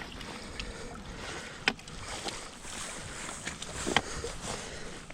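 Shallow water sloshing and splashing at the shore, with scattered light ticks and two sharp clicks, one under two seconds in and one about four seconds in.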